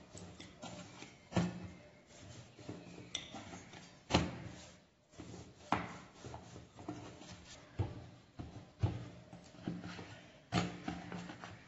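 Wooden rolling pin rolling dough out on a footed stainless-steel chapati board: a low rolling rumble with the board knocking against the table, sharp knocks every couple of seconds.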